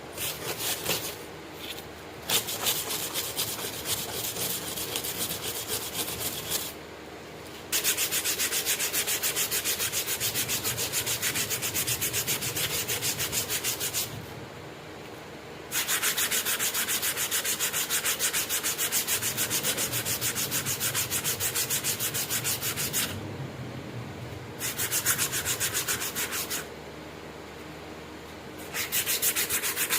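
Fast back-and-forth abrasive scraping on a steel knife blade, several strokes a second, in runs of several seconds with short pauses between them.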